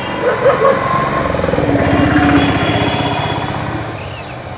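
A motor vehicle's engine passing close by, growing louder to a peak about halfway and then fading away.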